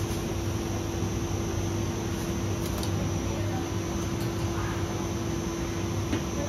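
Steady machine hum with an even hiss, a constant tone running through it, and a couple of faint clicks.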